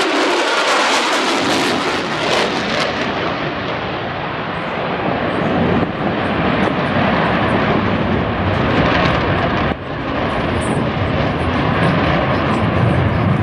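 Loud jet noise from an F-35A Lightning II's single Pratt & Whitney F135 afterburning turbofan as the fighter flies by. A harsh high hiss is strongest for the first few seconds, then gives way to a deeper rumble that grows toward the end.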